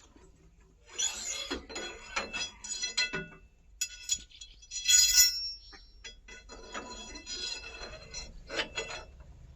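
Steel hand tools clinking and scraping against the tractor's PTO shaft parts while a lock is worked loose, in a run of irregular sharp metallic strikes that ring briefly, loudest about five seconds in.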